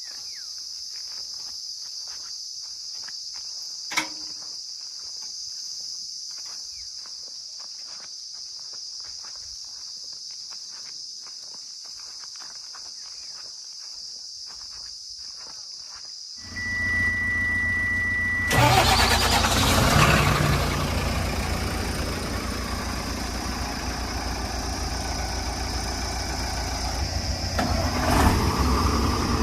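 A quiet steady high hiss with faint ticks and a single click. About 16 seconds in, a heavy diesel engine cuts in abruptly, with a steady high beep for about two seconds, then runs loudly for the rest.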